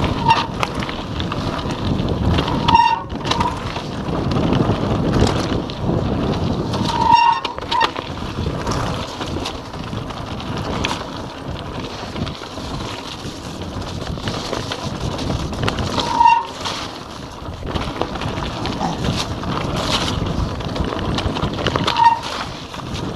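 Giant Anthem 2 27.5 cross-country mountain bike riding fast on a gravel forest trail: wind rushing over the microphone, with tyres rumbling and the bike rattling over rough ground. Short squeaks come through five times.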